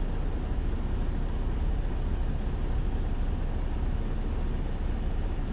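Steady low rumble of a truck engine running, even throughout.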